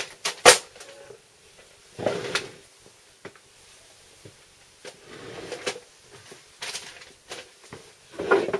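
Handling noises at a workbench: a few sharp clicks and knocks near the start, the loudest about half a second in, then several short bursts of rustling as a box and bag of heat-shrink tubing and small tools are handled.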